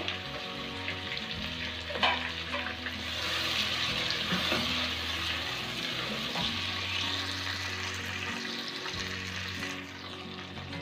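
Chicken pieces with tomatoes and green chillies sizzling in hot oil in a pot, stirred with a wooden spatula, with a knock about two seconds in.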